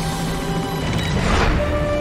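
Background action music with sustained low notes, and a rushing swell about a second and a half in.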